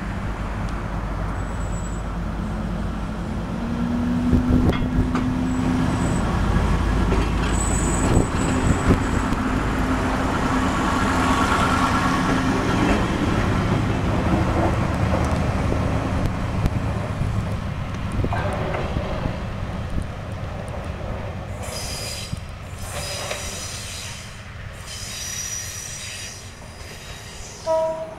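KiHa 52 diesel railcar pulling away and passing close by. Its engine note climbs as it gets under way, and the wheels click over the rail joints, loudest as it goes by. The sound then fades as it runs off along the curve, with high wheel squeal near the end.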